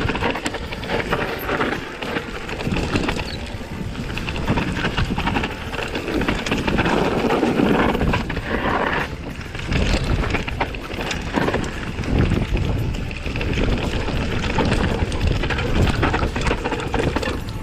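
Mountain bike riding down a rough dirt trail: wind rushing over the camera microphone and the bike rattling and knocking over bumps.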